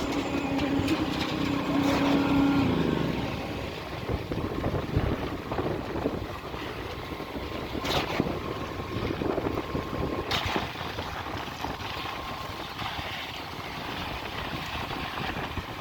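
Diesel engine of concrete-pouring machinery running with a steady hum that fades about three seconds in, leaving a rough mechanical noise. Two sharp clacks come through later.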